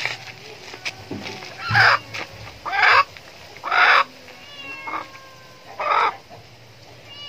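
A chicken squawking in alarm, four loud harsh squawks about a second apart, as it is caught and held for slaughter.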